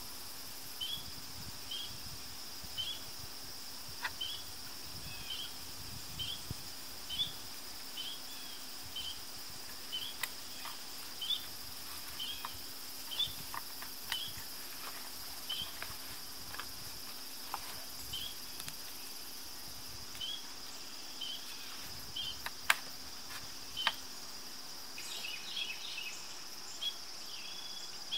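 Outdoor insect chorus: a steady high-pitched trill with short chirps repeating about one and a half times a second. Over it come a few sharp knocks and clicks from wooden poles being handled, the loudest a little past two-thirds of the way through.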